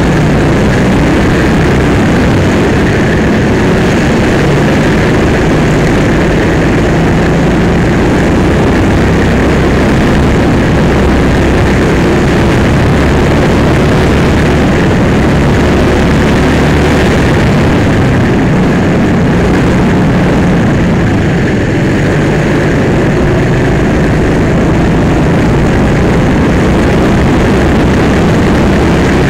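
Go-kart engine running hard at racing speed, heard loud and close from a camera mounted on the kart, a steady unbroken drone throughout.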